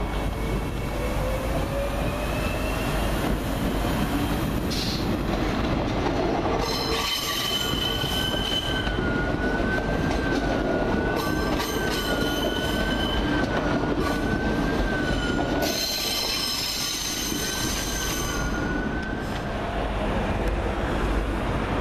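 Double-deck electric passenger train rolling slowly through station trackwork, its wheels squealing on the curves and switches: a shrill, wavering squeal sets in about six seconds in and dies away shortly before the end. A faint rising whine is heard in the first few seconds.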